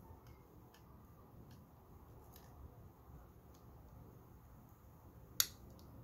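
Faint small clicks and taps from handling a small aluminium M.2 NVMe SSD enclosure, with one sharp click near the end as the case parts are pressed together.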